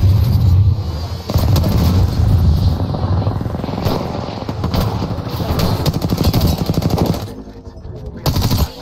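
Rapid automatic gunfire from an R-301 carbine in a first-person shooter video game, in long bursts. It stops about seven seconds in, with one more short burst near the end.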